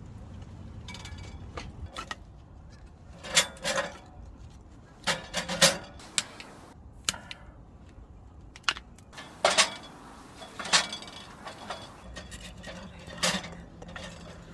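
A series of about a dozen sharp clinks and knocks, irregularly spaced, each ringing briefly, like metal camp gear being handled.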